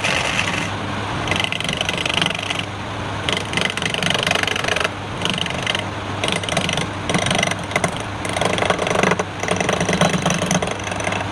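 Wood lathe running with a steady motor hum, while a turning tool cuts into the spinning wood in repeated passes, each a second or two of hissing scrape.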